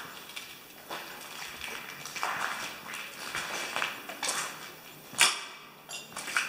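Footsteps on a debris-strewn floor, about one step a second, with a sharp snap about five seconds in, the loudest sound.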